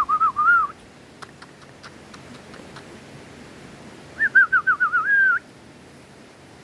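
A person whistling to call dogs: a short run of warbling whistles right at the start and another about four seconds in, with a few faint clicks between.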